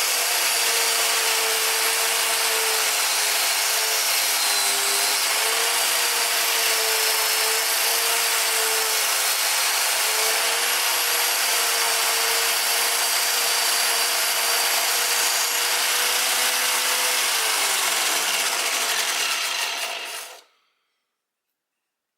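Homemade belt grinder powered by an angle grinder, sanding wood on its abrasive belt: a steady motor whine under a loud rasping of belt on wood. Near the end the whine falls in pitch and the sound stops about twenty seconds in.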